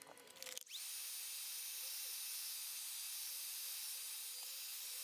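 Air blower run in one long blast of about five seconds, a steady hiss of blown air. A motor whine rises as it spins up and falls away as it cuts off.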